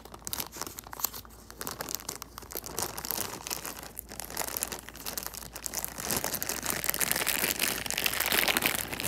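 Plastic packaging crinkling and rustling as it is handled: a dense run of small crackles that grows louder over the last few seconds.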